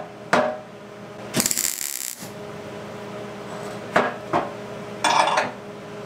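MIG welder tacking a stainless steel exhaust tube to a mild steel one: a hissing burst under a second long about a second and a half in, and a shorter one about five seconds in. Sharp clicks and clinks of the welding gun and gear being handled come between them, over a steady hum.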